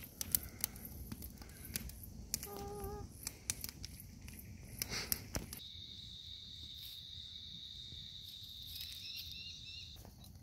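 Bush ambience: scattered crunching clicks, like footsteps on dry leaf litter, and a short warbling call in the first half. Then a steady high-pitched insect trill with a few bird chirps over it, cutting off suddenly near the end.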